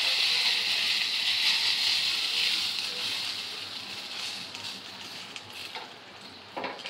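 Hot tempering oil (baghar) with fried dried red chillies, onion and garlic sizzling as it hits the lentil dal, the hiss dying away steadily.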